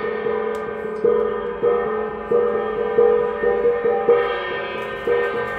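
A metal gong struck over and over at an uneven pace, roughly two strikes a second. Its ringing tones overlap and carry on between the strikes.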